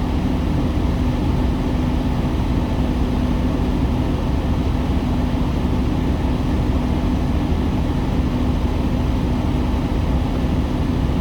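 Semi truck's diesel engine running steadily: an even low rumble with a constant hum.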